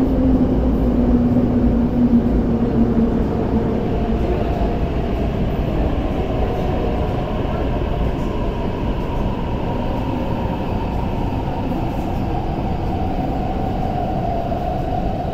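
Tuen Ma Line metro train running along an underground platform behind the screen doors: a steady rumble of wheels and running gear with a motor whine that climbs a little in pitch in the second half.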